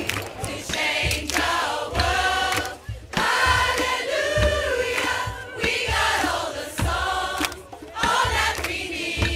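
A large choir of mostly women's voices singing together in phrases, with short breaks between them.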